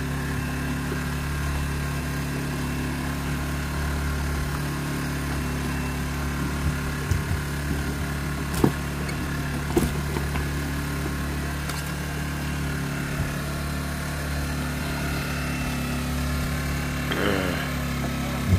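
Small engine running steadily, a constant even hum, with two short knocks about halfway through.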